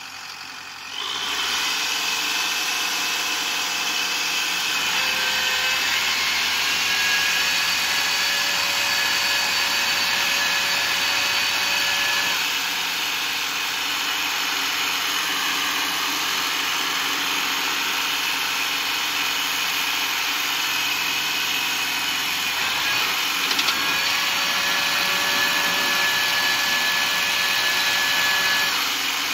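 Kubota M6040SU tractor's diesel engine revving up from idle about a second in, then running steadily at high revs, with a high whine that comes and goes.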